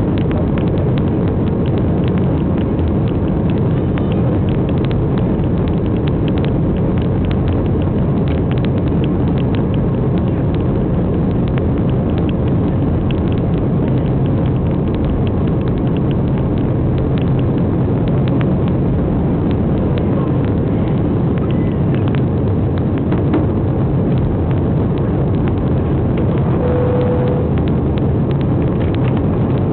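Airbus A320 jet engines at takeoff power during the takeoff, a loud, steady rumble, with frequent light rattles and knocks that thin out in the last several seconds.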